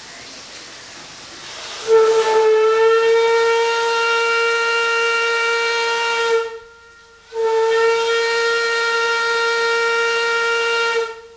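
Paddle steamer's steam whistle sounding two long blasts of steady pitch, the first about four and a half seconds long and the second nearly four seconds, with a short gap between. A fainter steam hiss comes before the first blast.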